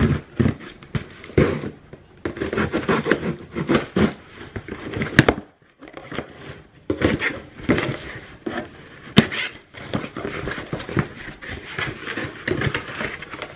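A knife slitting packing tape along a cardboard shipping box, then the cardboard flaps being pulled open and the box handled: scraping, tearing and crackling with many sharp clicks, broken by a brief hush about halfway through.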